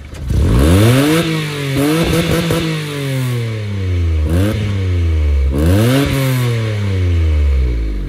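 Citroen C1 engine revved through a motorcycle exhaust: the revs shoot up sharply four times, the first and biggest right at the start, the others about 2, 4.5 and 5.5 seconds in, each time falling slowly back toward idle.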